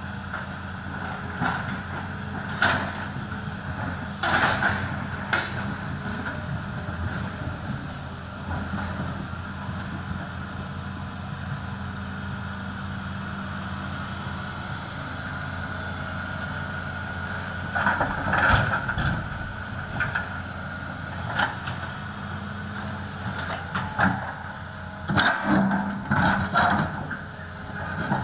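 Excavator diesel engine running steadily under load, with several loud clattering knocks of stones dropping into a truck bed, mostly in short clusters a few seconds in, about two-thirds of the way through, and near the end.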